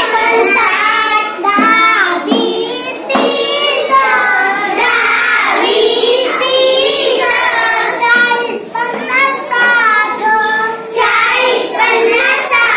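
A young girl chanting the numbers in Marathi in a sing-song voice, counting through a number table.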